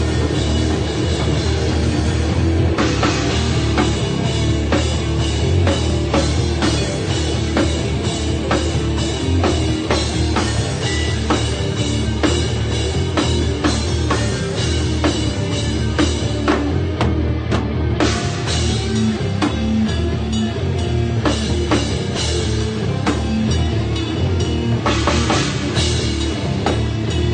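A rock band playing live at full volume, with a steady, driving drum-kit beat over bass and guitar. The cymbals and high end drop out briefly about two-thirds of the way through, then come back in.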